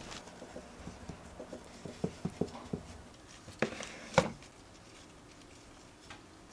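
Light handling sounds: a run of small taps and clicks, then two sharper knocks a little over halfway through.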